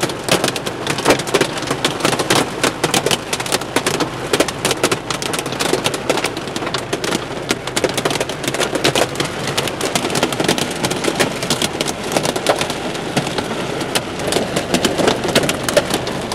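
Hail coming down hard with rain: a dense, irregular rattle of many sharp hailstone hits.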